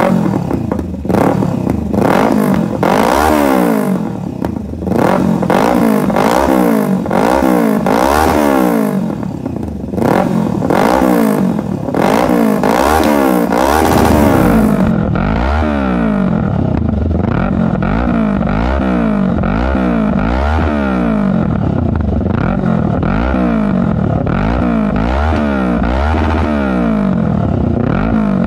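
Kawasaki Z650's parallel-twin engine running through an aftermarket full exhaust system with a black bomb muffler, revved over and over in neutral with quick throttle blips, about one a second, each rising and falling in pitch. From about halfway on it sounds duller, with less hiss and crackle on top.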